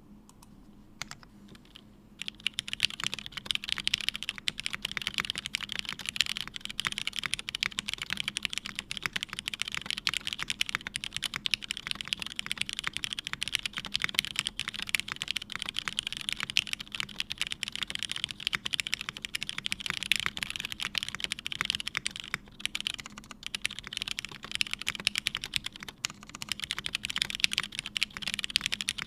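Typing on a custom Lyn Whale mechanical keyboard with a half FR4 plate, lubed and filmed Cherry Hyperglide MX Black linear switches and GMK keycaps: a fast, continuous stream of key clacks that starts about two seconds in.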